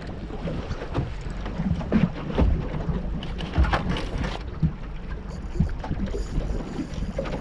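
Wind buffeting the microphone and water slapping against the hull of a small aluminium boat, with uneven knocks and thumps.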